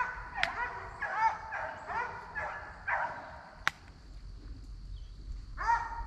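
Deer hounds baying: a run of short barks, each rising and falling in pitch, stops about three seconds in and starts again near the end. A sharp click comes near the start and another in the quiet middle.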